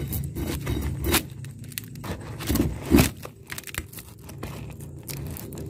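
Scraping and clattering of wood and loose debris being handled in a tight crevice, with sharp knocks about a second in and again about three seconds in, over a low steady hum.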